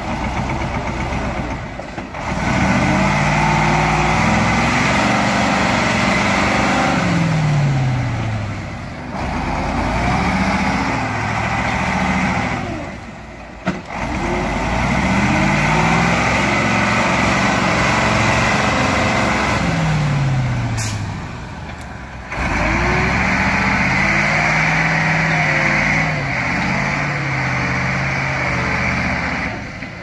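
Ural 4320 6x6 truck's diesel engine revving hard under heavy load as the log-laden truck pushes through deep mud. It comes in four long surges, each several seconds long, its pitch rising and falling, easing off briefly between pushes.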